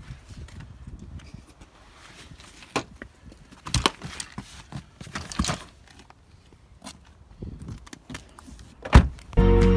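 Footsteps crunching irregularly on snow and ice, with scattered small clicks and a sharp knock about nine seconds in. Background music starts just before the end.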